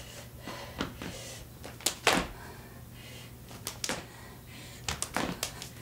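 Sneakered feet landing on a wooden parquet floor as a person hops, in irregular sharp thuds, the loudest about two seconds in and a quick cluster near the end.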